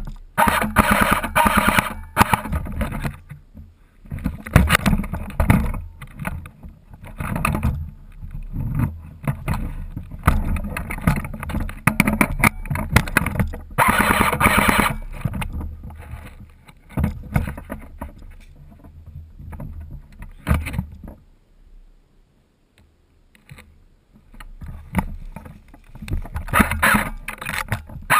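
Rustling and scraping of a player moving through forest undergrowth, picked up by a helmet-mounted camera. The noise comes in irregular bursts and drops almost to silence for a few seconds near the end.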